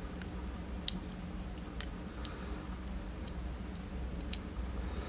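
Scattered small, sharp clicks and taps of tiny metal lock pins and drivers being picked out and handled on a tabletop during the gutting of a pin-tumbler lock, over a low steady hum.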